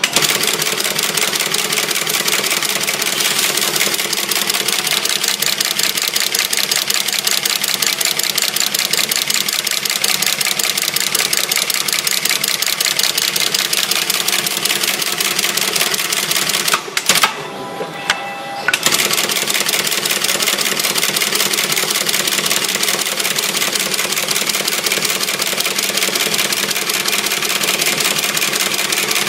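Brush tufting machine running, punching bristle tufts into a round toilet-brush head with a fast, steady mechanical clatter. A little over halfway through it stops for about a second and a half, then starts again.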